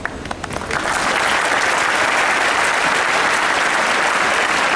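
Large audience applauding: a few scattered claps at first, swelling within the first second into steady, dense applause.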